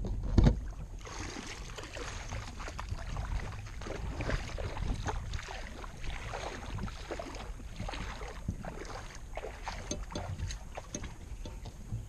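Close rustling and scraping as a spotted dove moves about inside a wire-mesh trap, brushing leaves and the camera, with many small irregular clicks and a thump about half a second in.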